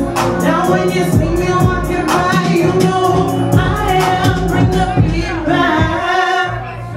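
Music with a steady beat and a sung vocal, a woman's voice by the sound of it.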